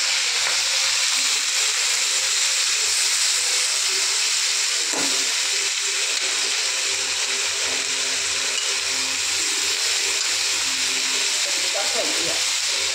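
Freshly added potatoes, peas and onion sizzling in hot oil in a kadhai, a steady loud hiss.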